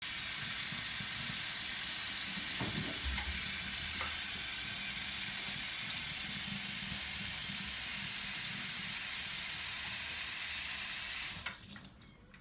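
Kitchen mixer tap running steadily into a stainless steel sink, then shut off abruptly near the end.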